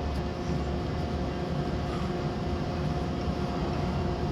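Mori manual lathe running steadily, a constant low hum with a few steady whining tones from its spindle and gearing.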